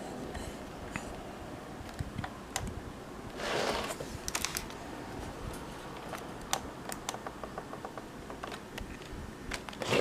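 Scattered small clicks of a camcorder's buttons and switches being worked by hand, with a short rustle of handling about three and a half seconds in.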